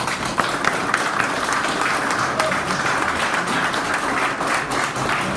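An audience applauding steadily at the close of a speech.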